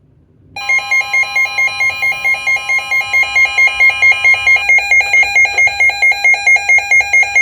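A NOAA weather radio, a Midland WR120, sounding its alert alarm for a severe thunderstorm warning: a loud electronic beep pulsing about four times a second. Under it, the broadcast's steady warning tone runs for the first few seconds, then stops.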